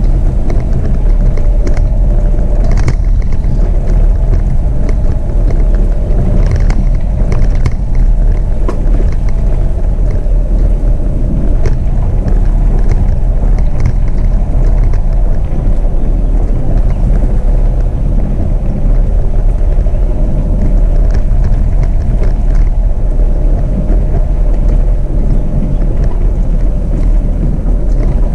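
Jeep Renegade driving on a dirt road: a loud, steady low rumble of tyres and wind, with scattered knocks and rattles from the rough surface, the clearest around three and seven seconds in.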